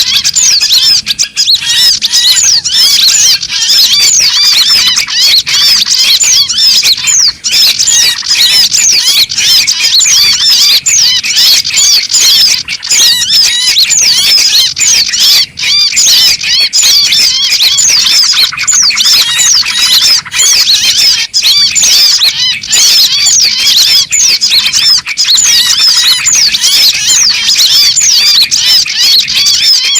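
Dense, unbroken chatter of many small songbirds, rapid high-pitched chirps overlapping one another: a bird-lure (pikat) recording made to draw small birds in to perch.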